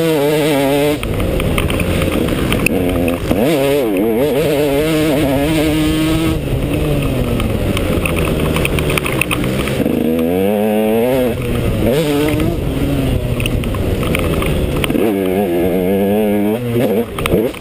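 Off-road motorcycle engine being ridden hard on a dirt trail. Its pitch climbs and falls back again and again as the throttle is worked.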